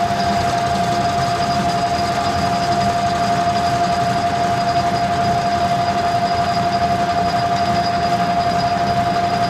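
Metal lathe running steadily with a constant whine over a low rumble, facing the end of a 2-inch 1018 steel bar with a single-point cutting tool.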